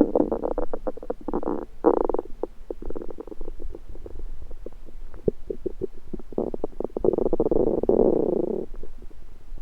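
Human stomach gurgling and rumbling: a string of short gurgles and quick pops, then one longer rumble about six and a half seconds in that lasts about two seconds.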